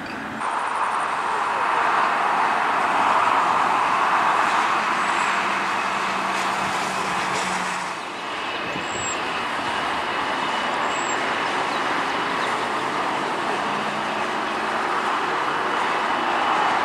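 Jet airliner engines at taxi power, a steady rushing noise. About eight seconds in it gives way to a four-engined Boeing 747-8 taxiing, with a thin high whine over the rush.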